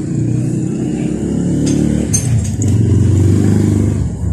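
An engine running steadily, from a vehicle other than the opened bike, growing louder from about two seconds in and easing off near the end. A few light metallic clicks sound over it.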